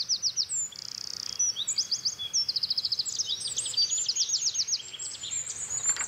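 Eurasian wren singing: a long, rapid run of high notes and trills, with a buzzing trill about a second in.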